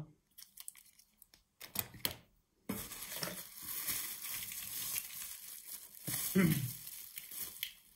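A few light clicks of small plastic parts being handled, then, about three seconds in, plastic bubble-wrap packing rustling and crinkling steadily as it is pulled out of a cardboard box.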